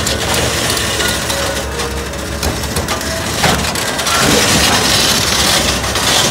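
Liebherr 984 crawler excavator travelling on its steel tracks: track chains clanking and grinding over dirt, with a few sharper knocks. The diesel engine runs underneath as a steady low hum.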